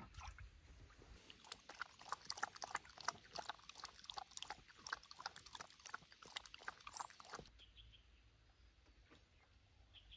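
Young dog lapping water from a river, a quick, even run of wet laps about four a second that stops after about six seconds.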